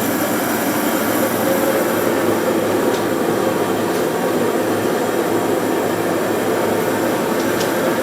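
Industrial forced-air heater unit running on test, its blower giving a loud, steady, even rush of air with a low hum underneath.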